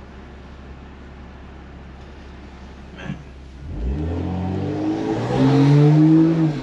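Car engine idling with a steady low hum, then revved about halfway through: the pitch climbs and holds, then climbs higher and louder before dropping back near the end.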